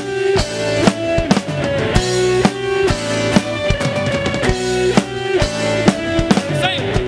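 Rock band playing: a drum kit keeping a steady beat under guitars.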